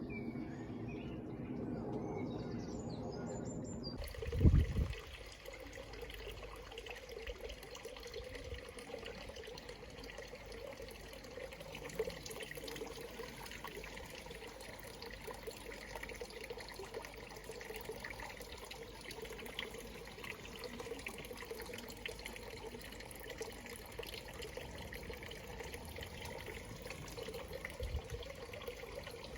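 Steady, faint, water-like trickling noise, with a single thump about four and a half seconds in.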